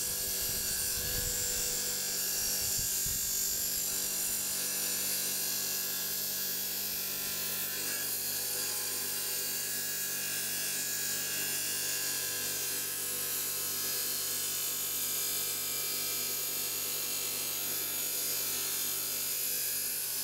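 Electric stone saw running steadily, its blade grinding into a hard agate-filled nodule, with a few low knocks in the first few seconds.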